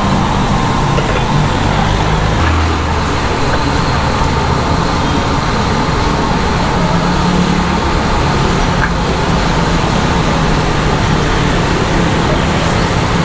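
Steady road traffic: motor vehicle engines running with a low hum that shifts as vehicles pass.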